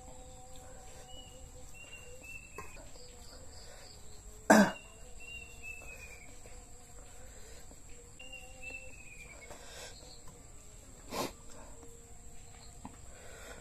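Insects chirping steadily in the background, broken by one short, loud sudden noise about four and a half seconds in and a smaller one near eleven seconds.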